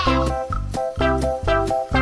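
Upbeat children's background music with a steady beat of short, bouncy notes.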